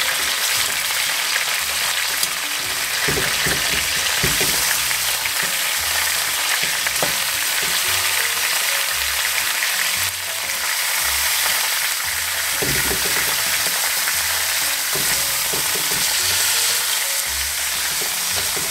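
Lamb shanks sizzling steadily as they brown in hot oil in an aluminium pot, with a few knocks and scrapes as the meat is turned with metal tongs.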